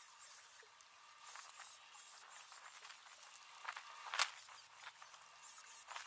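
Low hiss with a few sharp knocks, the clearest two about three and a half and four seconds in; no grinder motor is heard.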